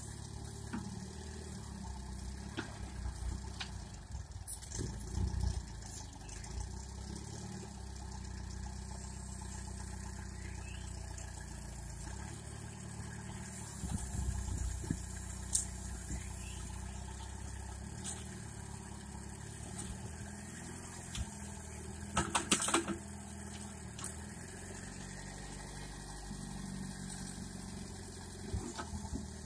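Engine of a homemade backhoe tractor running steadily at a low hum, with scattered clanks and a short burst of knocks about three-quarters of the way through.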